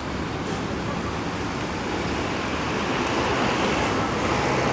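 Steady road traffic noise from passing vehicles, growing a little louder in the second half.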